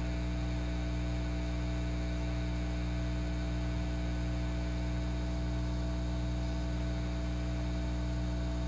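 Steady electrical mains hum: a low, unchanging buzz with a few fixed higher tones above it over a faint hiss.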